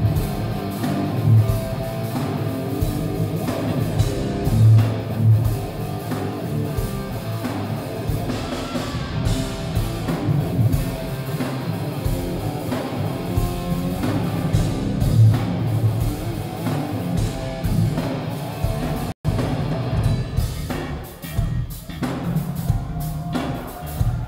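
Live instrumental rock band playing loud: electric guitar over drum kit and bass guitar. It is recorded on a smartphone microphone, so it sounds muffled with muddy bass. The sound cuts out for an instant about three-quarters of the way through.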